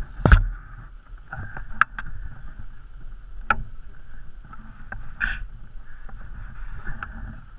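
Sharp metallic clicks and knocks, about five spread out with the loudest near the start, from a hand tool working on the foot lever of a Yamaha TW125 motorcycle, over a steady hiss of wind on the microphone.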